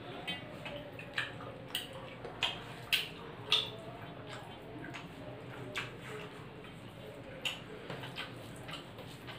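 Eating by hand from stainless steel plates: scattered short clicks and clinks as fingers work rice and curry against the metal and mouths chew, the loudest pair about three seconds in.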